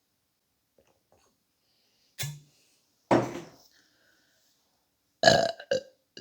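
A woman burping three times: a short burp about two seconds in, a longer one a second later, and the loudest one near the end.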